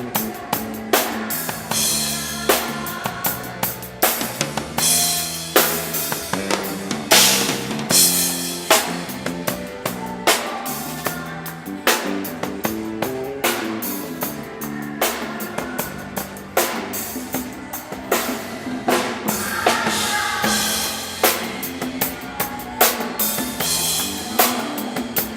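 A band playing through a song during a sound check: the drum kit keeps a steady beat with kick drum, snare and rimshots, with low notes and other pitched instruments moving over it.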